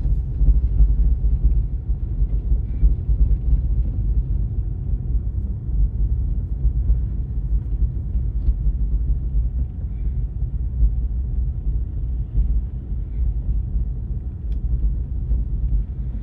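Steady low rumble of tyre and road noise inside a Tesla electric car's cabin as it drives along a snow-covered road.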